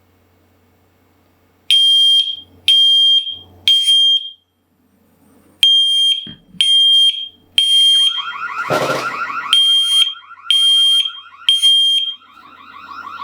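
Smoke alarm sounding loud, high-pitched beeps about once a second: three beeps, a pause of about a second and a half, then a steady run of beeps. About two-thirds of the way through a short hiss sounds, and a lower warbling tone runs under the beeps from then on.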